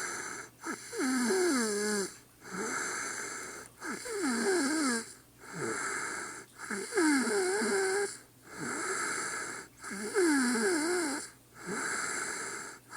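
A woman snoring in her sleep: four snoring breaths about three seconds apart, each a rough snore that wavers up and down in pitch, alternating with a quieter breathy hiss.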